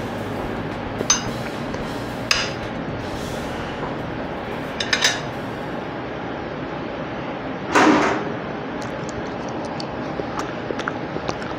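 Close-miked eating sounds: a few light clicks of food and dishes being handled, then a louder crunchy bite about eight seconds in, followed by small mouth clicks from chewing, over a steady hiss.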